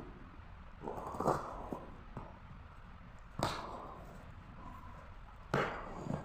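Packaging being handled: three separate short knocks with a little rustling, about a second in, midway, and near the end.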